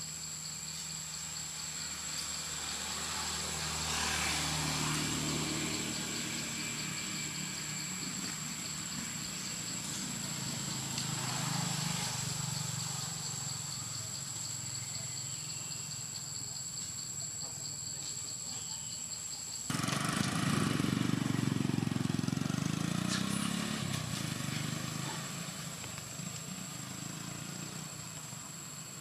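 Steady high-pitched insect drone, with the engine sound of vehicles passing on a road swelling and fading several times; the loudest pass begins abruptly about two-thirds of the way through, its pitch rising and falling.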